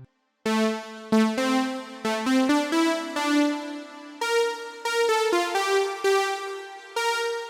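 GForce Oberheim SEM software synthesizer, an emulation of the analog Oberheim SEM, playing a new patch after a short gap: a melodic run of bright, short notes with sharp attacks, stepping up and down in pitch.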